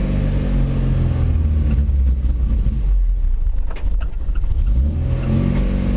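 1982 Toyota Hilux pickup's engine running steadily, its note thinning out about two seconds in and picking up again near the end, with a couple of light clicks.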